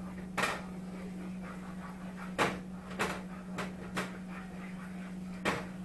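A kitchen utensil knocking and clattering against a cooking pan of thickening creamy sauce, about six sharp knocks at uneven intervals, over a steady low hum.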